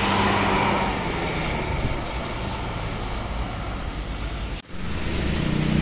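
Diesel engine of a tour coach running as it pulls past close by, its low hum easing off into steady road traffic noise. About four and a half seconds in the sound drops out for an instant, then another vehicle's engine hum comes in.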